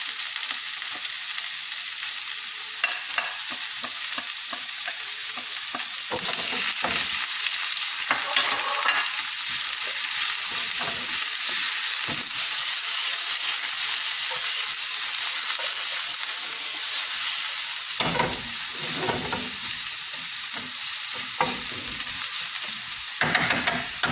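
Sliced red onions frying in hot oil in a nonstick frying pan with a steady hiss, while a wooden spatula scrapes and stirs them through the pan at intervals.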